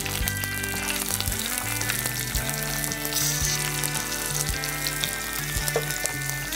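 Chopped onions sizzling and frying in hot oil in a clay pot, over tempered mustard seeds, urad dal, cumin, fenugreek, curry leaves and green chillies, with a steady crackling hiss.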